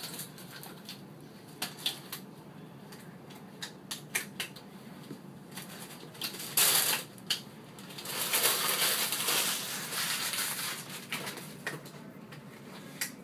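Paper and plastic crinkling and rustling with scattered light clicks and taps, from sterile wrappers, drapes and gloves being handled while a procedure tray is set up. The crinkling is loudest for about half a second around six and a half seconds in, then again for a couple of seconds from about eight seconds in.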